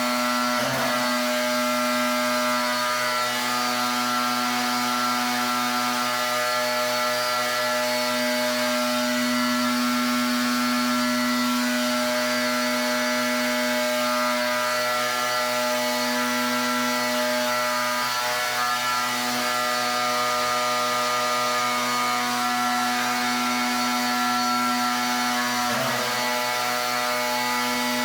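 Pressure washer running steadily with a strong, even drone, spraying water onto a surface; the tone wavers briefly about a second in and again near the end.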